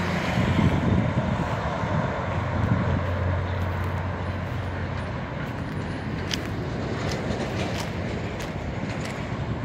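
Steady road traffic noise: a low rumble with a vehicle engine's hum that is strongest in the first half and fades after about five seconds.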